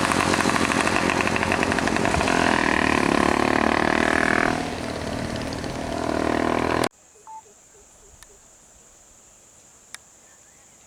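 A vehicle engine running close by, easing off about four and a half seconds in and picking up again, then cut off abruptly about two-thirds of the way through. What follows is a quiet outdoor background with a steady high insect drone and a few faint clicks.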